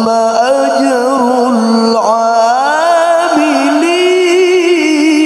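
A man reciting the Quran (tilawah) in long melismatic notes into a stage microphone. The pitch climbs slowly about two seconds in, then holds on a wavering, ornamented note.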